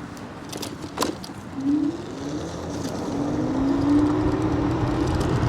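Electric scooter's hub motors whining on a ride, the pitch rising as it speeds up, with road and wind rumble under it and a few light rattles near the start.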